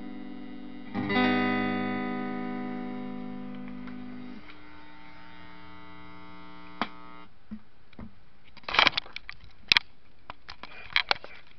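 Electric guitar chord strummed about a second in and left to ring out, fading slowly until it is cut off a few seconds later. Then sharp clicks and knocks of the camera being handled, louder than the guitar.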